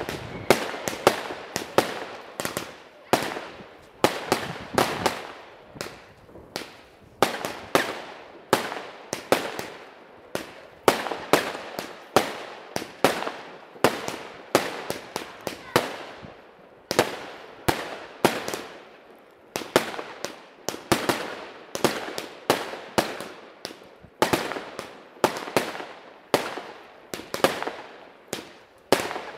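Weco Bazooka fanned firework battery firing: a continuous run of sharp bangs, about two a second, each with a short trailing decay.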